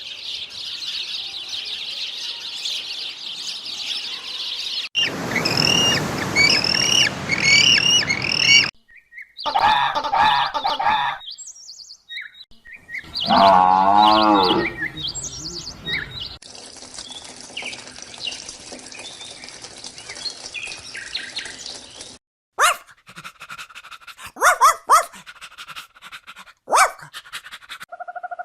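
A run of short wildlife recordings cut together: dense high bird chirping, then repeated short birdcalls, a wavering pitched animal call about halfway through, and a few sharp calls near the end.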